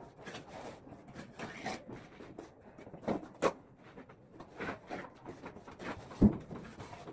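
Mason's trowel scraping and smoothing wet cement plaster in short repeated strokes, with a sharp knock a little after six seconds in.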